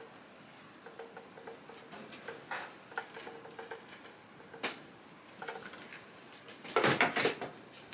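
Soft rustling, taps and clicks of fabric being pressed and handled with a small iron on a wool pressing mat, with a louder burst of handling noise about seven seconds in as the iron is moved off the work.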